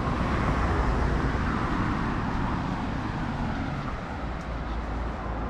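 Street traffic: a steady low rumble of passing vehicles and road noise.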